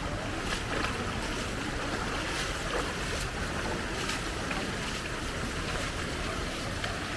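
Steady rush of strong-flowing floodwater, with small splashes now and then.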